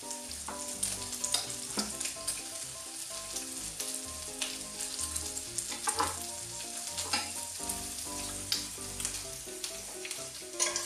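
Thin bacon rashers sizzling in a hot non-stick pan, a steady hiss with scattered sharp crackles, over soft background music.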